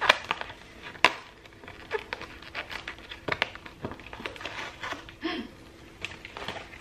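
A cardboard advent calendar box being handled and one of its doors pried open: irregular clicks, taps and crinkles of cardboard and packaging.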